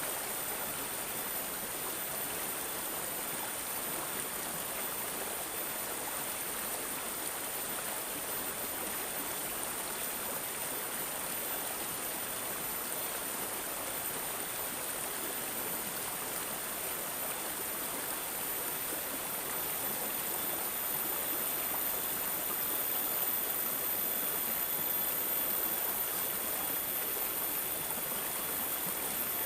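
Running water babbling and gurgling steadily, like a small stream, swelling a little louder about two-thirds of the way through.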